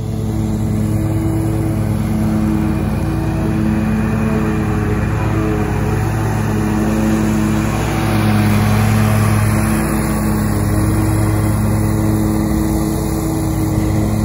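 A riding zero-turn lawn mower's engine runs in a steady drone, swelling and easing a little every couple of seconds.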